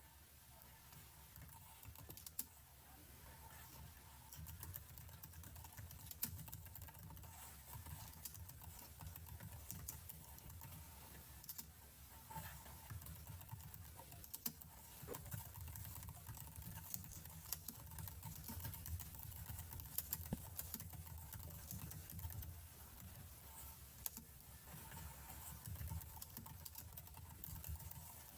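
Computer keyboard keys tapped in irregular, scattered clicks, over a faint low hum.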